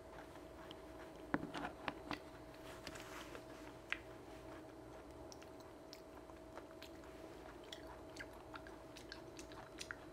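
Quiet, close chewing of a raw coconut worm (palm weevil larva), with soft wet mouth clicks and a few sharper clicks. The loudest comes about a second and a half in, with another near four seconds. The larva's skin is very tough and chewy.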